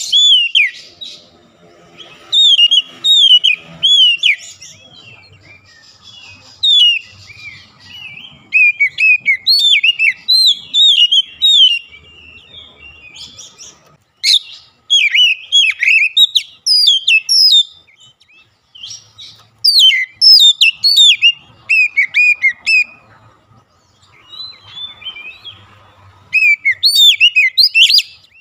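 Oriental magpie-robin singing: loud runs of quick, slurred whistled notes in bursts of one to three seconds, with short pauses between them.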